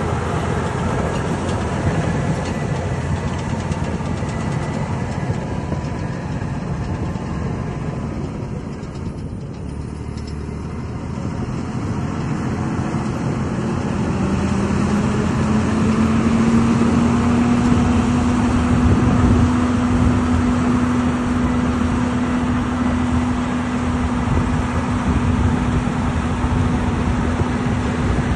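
Cat D6T LGP crawler dozer's diesel engine running as the machine moves out of sight, the noise dipping slightly about nine seconds in. From about fourteen seconds the engine note rises and then holds steady, growing louder as the dozer comes back closer.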